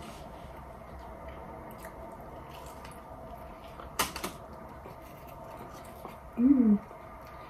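A crunchy bite into a fried chalupa shell about four seconds in, with a smaller crunch just after, then a short hummed "mm" that rises and falls in pitch near the end, over a steady low background hum.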